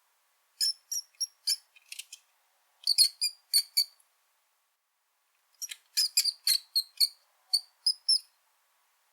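Brown rat squeaking: short, very high-pitched squeaks in three quick bouts with silent gaps between, the longest bout starting about five and a half seconds in.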